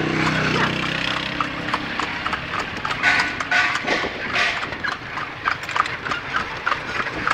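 Horse's hooves clip-clopping on a paved road as it pulls a calesa (horse-drawn carriage), a steady run of sharp clops. A low steady hum fades out over the first two seconds.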